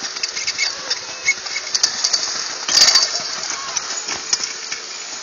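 Skis scraping over packed snow while being towed up a surface drag lift, a steady rough hiss with many small clicks and a louder scrape about three seconds in.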